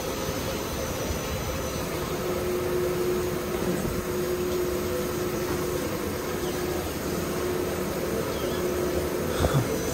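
Belanger automatic car wash machinery running: the wrap-around brushes spinning beside the car with a steady whirring wash noise and a faint steady hum, and a couple of short knocks near the end.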